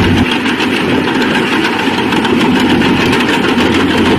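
Heavy earthmoving machinery's engine running steadily with a rough, continuous rumble, as a dump truck tips its bed beside a crawler bulldozer.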